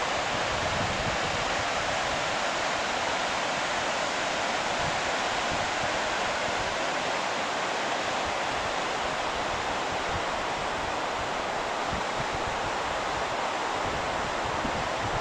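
Steady rushing of a white-water mountain river tumbling over a rocky bed below, with light wind buffeting on the microphone.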